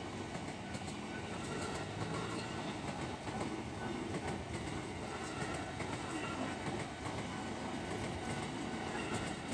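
Ex-JR East 205-series electric commuter train passing close by: a steady rumble of steel wheels on the rails, with faint clicks over the rail joints.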